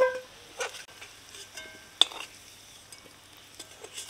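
A metal spatula clinking and scraping against a kadai, working through potatoes fried in hot oil, with a faint sizzle underneath. There are half a dozen ringing clinks, the sharpest about two seconds in.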